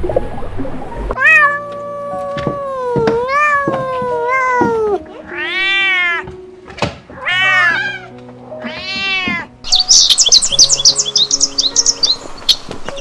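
Animal calls over background music: one long, wavering call, then three short calls that rise and fall, then rapid high bird chirping in the last few seconds.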